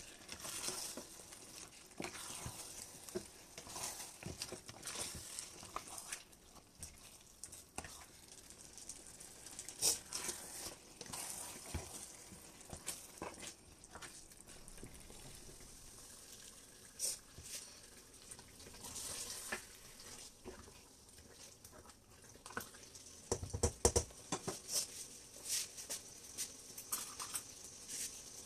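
Thick palm oil stew frying and sizzling in a stainless steel pot while a spatula stirs through it, with scattered clicks. Late on, a single dull thud stands out as the loudest sound.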